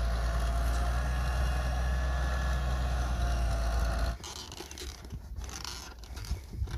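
Diesel engine and hydraulics of a Hitachi EX100WD wheeled excavator running steadily, a deep hum with a faint whine, as it tips a bucket of soil. About four seconds in the engine sound stops abruptly, giving way to quieter irregular clicks and scrapes.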